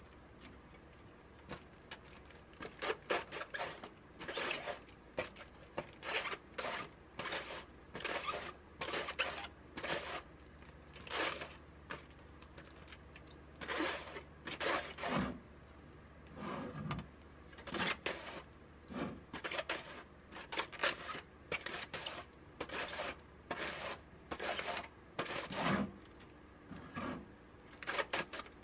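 Cabbage shredded on a handheld vegetable slicer set over a plastic colander: repeated strokes of the cabbage across the blade, about one and a half a second, starting about two seconds in.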